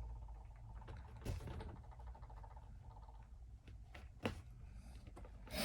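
A few faint plastic clicks as a spudger is worked around the edge of an ASUS Flow Z13's back cover, releasing its clips: one about a second in, another just past four seconds, and one at the end, over a low steady hum.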